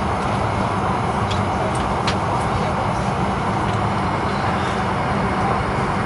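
Fokker 100's rear-mounted Rolls-Royce Tay turbofan running steadily at low power on the ground: a constant, even jet noise with a low hum beneath it.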